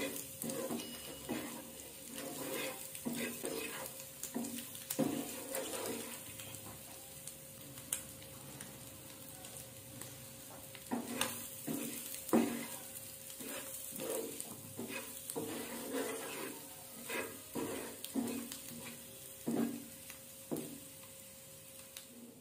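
A wooden spatula stirring and scraping spice-coated boiled egg pieces around a nonstick frying pan, in many irregular strokes, with a light sizzle of frying underneath.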